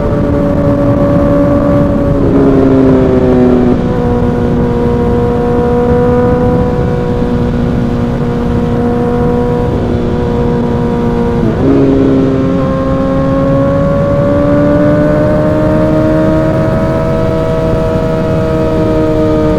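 Suzuki GSX-R1000's inline-four engine through an M4 aftermarket exhaust while riding at speed, with wind rush. The engine note steps down about two seconds in, jumps again near the middle, then climbs slowly and eases off.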